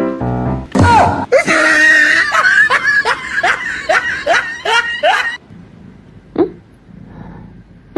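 A person laughing hard: a rapid string of high-pitched laughs, about three a second, for roughly four seconds, after a loud burst about a second in. It is quieter near the end, with one short cry.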